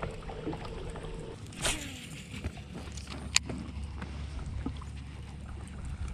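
Boat's electric trolling motor humming steadily, held on spot-lock, with a short swish and a sharp click a couple of seconds apart in the middle.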